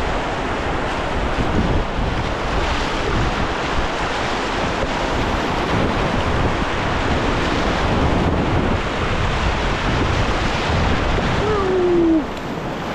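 Rushing whitewater of a river rapid heard close up from the canoe, a steady loud wash of water. Near the end there is a short falling tone.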